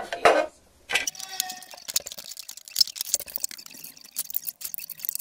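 Plastic fingerboard ramp pieces clattering and clicking as they are handled and fitted together on a wooden table, with two louder knocks right at the start followed by a quick run of small rattling clicks.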